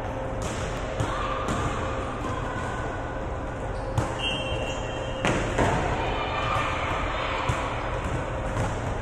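Basketball bouncing on a hard gym court, thudding every half second or so. Players' shoes and voices echo in the hall, with a short high squeak about four seconds in.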